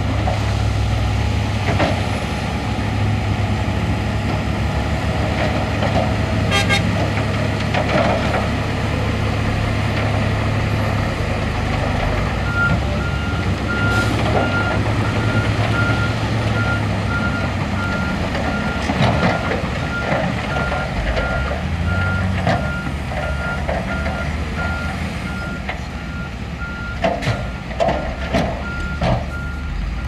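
Diesel engines of a bulldozer and dump trucks running with a steady low rumble. A little before halfway a reversing alarm starts beeping at a steady pace, and a few sharp clanks come near the end.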